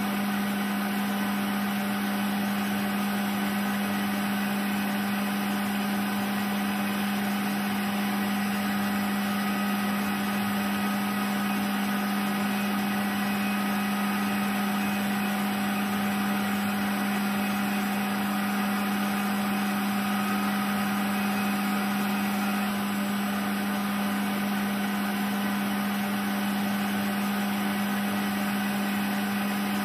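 CNC vertical mill-turn machine running steadily while milling holes in a large metal ring: an even machine hum with a strong steady low tone and fainter steady tones above it, unchanging throughout.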